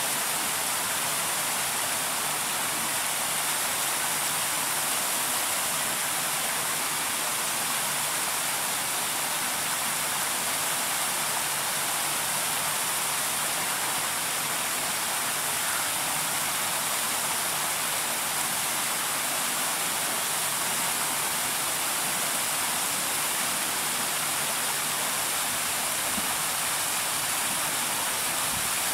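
A steady, even hiss that does not change, with no calls or other distinct sounds.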